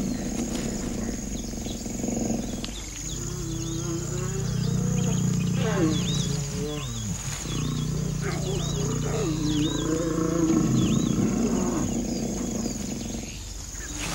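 Lions growling while mating: a deep, powerful purring rumble that comes in two long stretches, with a falling snarl between them about halfway through.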